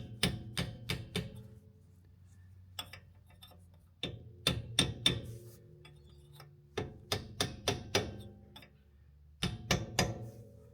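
Hammer tapping the metal bearing dust cap onto a caravan wheel hub: four runs of quick, ringing metallic taps with short pauses between.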